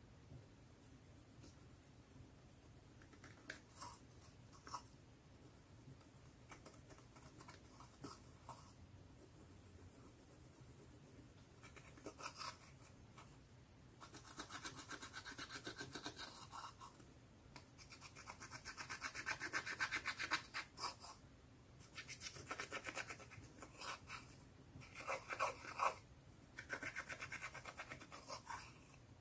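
Metal-tipped dotting tool scraping and crushing pressed eyeshadow in a plastic palette. At first there are a few faint taps and scratches; from about halfway on come spells of fast scratching strokes with short pauses between them.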